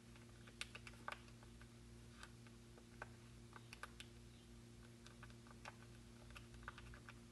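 Faint, irregular clicks of calculator keys being pressed, about a dozen taps, over a faint steady electrical hum.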